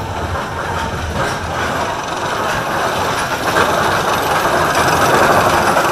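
Roller coaster lift chain clattering steadily as the train is hauled up the lift hill, the noise growing louder about three and a half seconds in.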